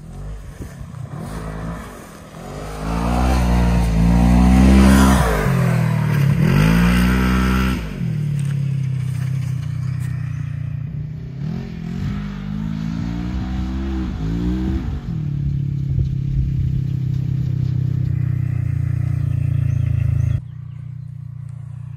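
Polaris RZR side-by-side's engine revving up and dropping back repeatedly as it accelerates over dirt tracks, loudest in a hard run early on, then running more steadily with a second, shorter spell of revving. The level drops suddenly near the end.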